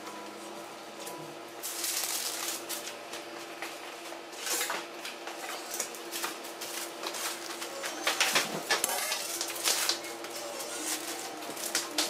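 Metal baking tray knocking and scraping on a paper-covered worktable as it is handled with oven gloves: irregular clatters that grow louder and more frequent from about two seconds in.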